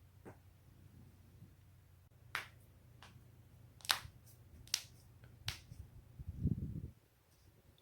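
Joints cracking: a faint pop, then four sharp pops about a second apart, the middle one loudest. A low muffled noise about a second long follows near the end.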